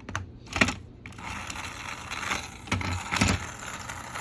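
Small battery-powered motor of a Thomas toy train whirring steadily from about a second in, with several plastic clicks and knocks from the toy being handled on its track.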